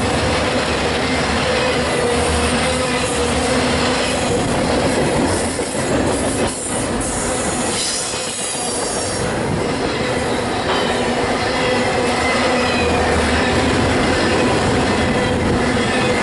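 Double-stack container well cars of a freight train rolling past at close range: a continuous rumble and rattle of wheels on the rails, with a steady wheel squeal running through it. The noise dips briefly about halfway through.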